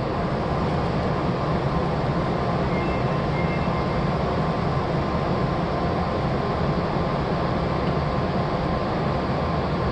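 Steady hum and rush inside an Odakyu commuter train car standing at the platform, even in level throughout.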